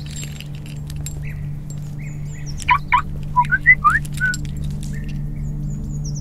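Birds chirping: short, quick chirps throughout, with a cluster of louder chirps about halfway through, over a steady low hum.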